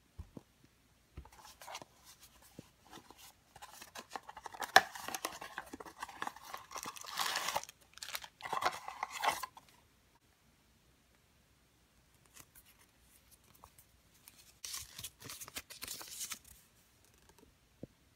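A small cardboard blind box and its paper packaging being handled and opened by hand: bursts of rustling, tearing and crinkling. The sound is loudest over the first ten seconds, goes quiet, then comes back briefly near the end.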